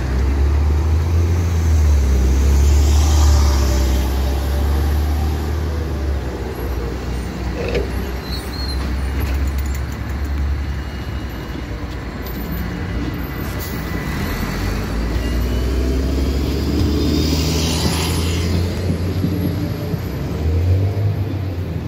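City street traffic: vehicle engines and passing cars, with a strong low rumble, a NefAZ 5299 city bus running close by at the start.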